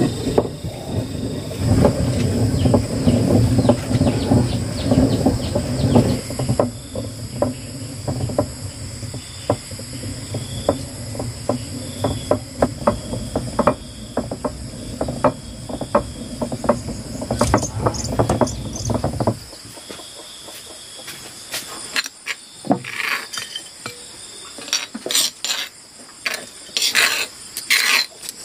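Insects trilling steadily over a low rumble that stops abruptly about two-thirds of the way through, with a run of sharp clicks and knocks that grow louder and denser near the end.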